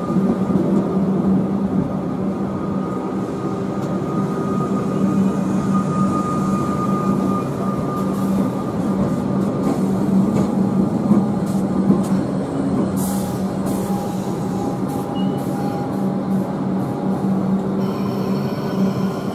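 Comeng electric suburban train moving slowly past, with a steady low hum and a high whine from its motors and equipment. Sharp clicks come in the second half.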